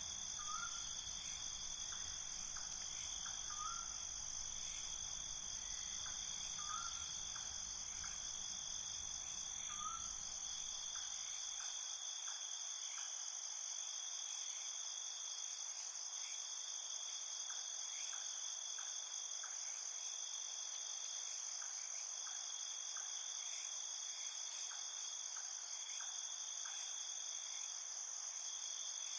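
Night insect chorus: crickets trilling steadily in a high, unbroken drone, with fainter regular ticking calls. In the first few seconds a short chirp sounds four times about three seconds apart, and a low background rumble drops away about twelve seconds in.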